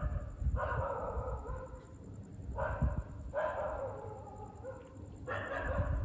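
Neighbourhood dogs barking in the distance at midnight, several drawn-out barks of about a second each repeating every second or two.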